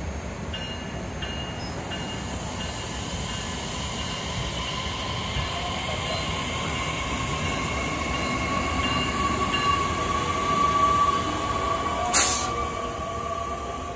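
A Metra Electric Highliner II bilevel electric train rolls past the platform, a steady rumble with high, steady whining tones that grow louder as the cars go by. Near the end there is one short, sharp burst of hissing noise.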